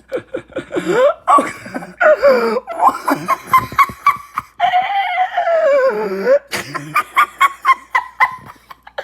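A person laughing hard in fits of high-pitched shrieks, with one long squeal about halfway through that falls in pitch.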